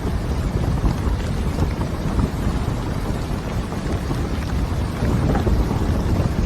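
Heavy rain falling: a dense, steady hiss over a strong low rumble.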